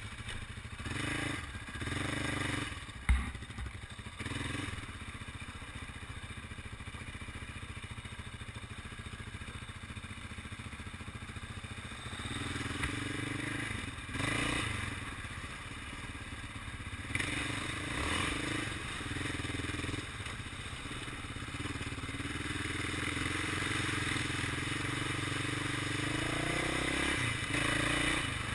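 Single-cylinder four-stroke ATV engine running as the quad rides a bumpy dirt trail, with rattles from the machine over the ruts and a sharp knock about three seconds in. The engine gets louder toward the end.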